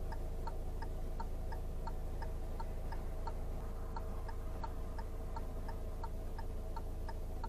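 Car turn-signal indicator ticking steadily and evenly inside the cabin, the right indicator left on while waiting to turn right, over the low steady hum of the idling engine.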